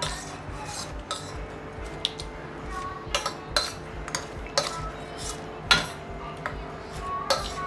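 A metal spoon mashes boiled, peeled tomatoes in a stainless steel bowl, clinking and scraping against the bowl at irregular moments. A faint steady hum runs underneath.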